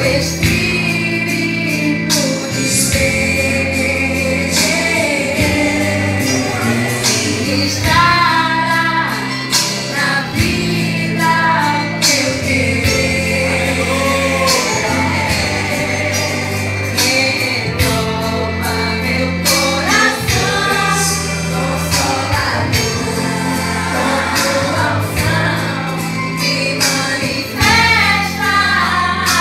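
Women singing a Portuguese gospel praise song over accompaniment with held bass notes and a steady drum beat.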